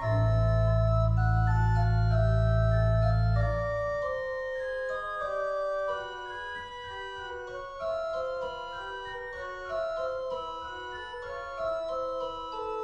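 Hey pipe organ playing: a deep pedal note sounds under the manual voices for about the first four seconds, then stops, leaving the higher lines moving on alone.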